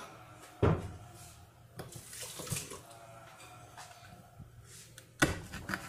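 Kitchen sink tap running briefly about two seconds in, with a sharp knock near the start and another near the end.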